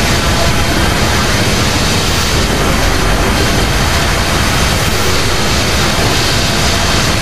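Loud, steady rushing noise with no clear pitch, spread evenly from a deep rumble to a high hiss: a dramatic ambient sound effect.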